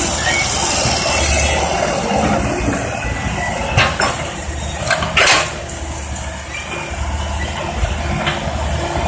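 Tracked hydraulic excavator's diesel engine running steadily under work, with a few sharp metallic clanks around four and five seconds in.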